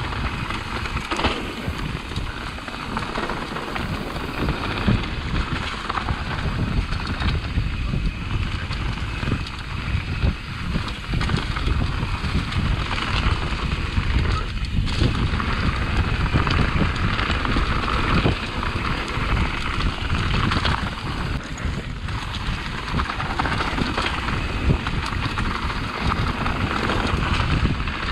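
Mountain bike rolling over rocky dirt singletrack: steady tyre noise and a constant rattle of small knocks from the bike over the bumps, with wind on the microphone.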